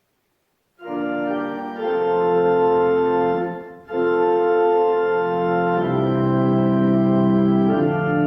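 Church organ starting up after a moment's silence, playing sustained full chords that change every second or two, with a brief break just before the halfway point: the closing voluntary after the benediction.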